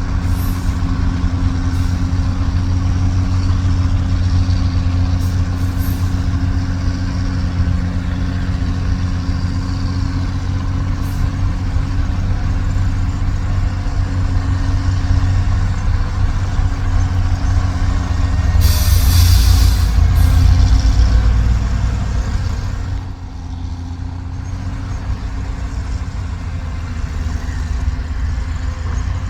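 Heavy dump truck's diesel engine running steadily, with a loud burst of air hiss lasting about two seconds a little past halfway. Soon after, the engine drops to a quieter idle.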